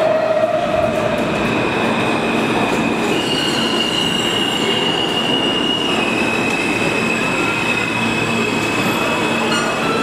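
Subway train noise in the station: a loud, steady rumble with a high metallic wheel squeal held over it, its pitch stepping up about three seconds in and down again about six seconds in.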